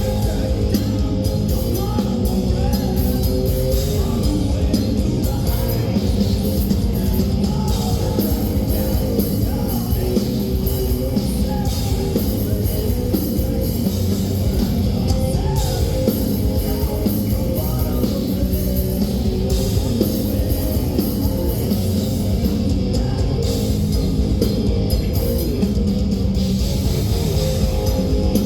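Progressive death metal band playing live: guitars and bass over dense, fast drumming.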